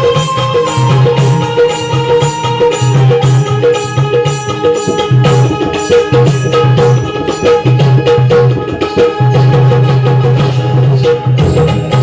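Loud music with a steady, repeating drum beat and heavy bass, played over a sound system.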